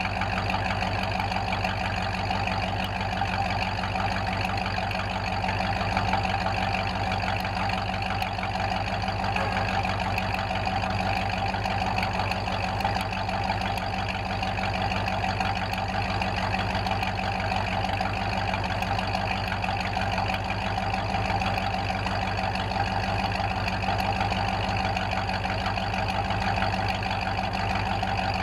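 Ford F-5 COE truck's V8 idling steadily, heard close at its twin exhaust tips: an even, unchanging exhaust burble with no revving.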